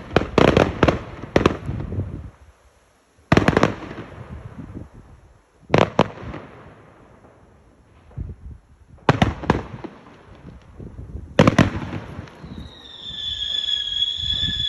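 Fireworks going off: a quick cluster of sharp bangs at the start, then single bangs every two to three seconds with echoing tails, and a steady high whistle for the last couple of seconds.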